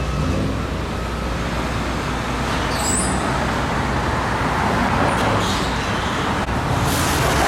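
Road traffic passing on a busy street, a steady rumble that swells as a heavy vehicle goes by in the second half, with a brief high squeal about three seconds in.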